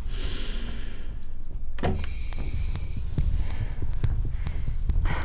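Tense film underscore: a low steady pulse with faint regular ticks, about three a second, and a brief rush of noise near the end.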